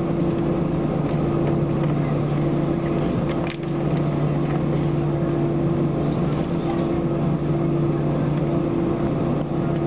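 Steady cabin hum of an Airbus A321-231 sitting on the ground with its IAE V2500 engines at idle, heard from inside the cabin: an even drone with a low, constant pitch and no spool-up.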